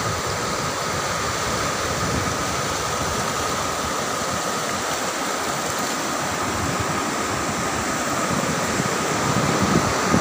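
Steady rush of surf breaking and washing up a sandy beach, with wind buffeting the microphone, stronger near the end.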